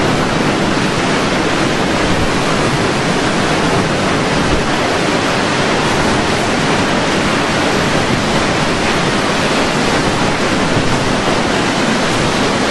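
Hurricane wind: a loud, steady rushing noise.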